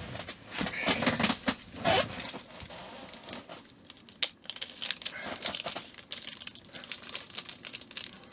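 Plastic packaging crinkling and rustling as it is handled, with a single sharp click about four seconds in.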